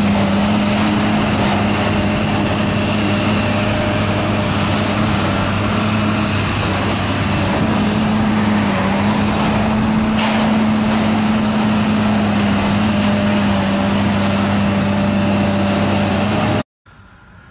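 Diesel engine of a demolition excavator running at a steady speed: a loud, constant low drone that dips slightly in pitch a few times. It cuts off suddenly near the end.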